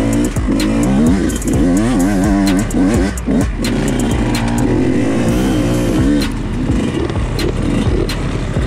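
Yamaha YZ125X two-stroke dirt bike engine revving up and down in quick swells as the throttle is worked, with frequent sharp knocks from the bike over the ground.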